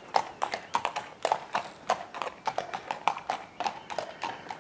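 Hooves of two ridden horses clip-clopping on a tarmac road: an uneven run of sharp clops, several a second.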